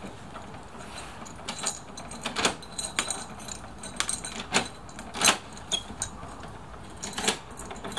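A bunch of keys jangling on a ring as a key is turned in a steel entry door's new Italian multi-bolt lock. Sharp, irregular clacks come as the bolts throw out and draw back in.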